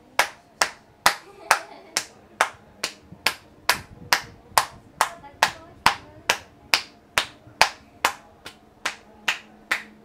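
Praying-hands percussion massage: palms pressed together strike the client's head and neck, each stroke a sharp clap-like pop from the cupped hands, in an even rhythm of about two to three a second.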